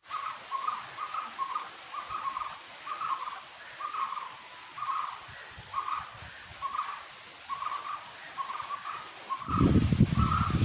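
A bird calling over and over, a short call pitched around 1 kHz about twice a second. About a second before the end, a loud low rumbling noise comes in under the calls.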